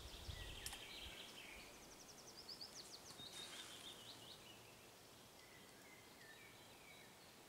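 Faint birdsong: small birds chirping with quick repeated trills, then a short series of lower notes near the end, over quiet background hiss.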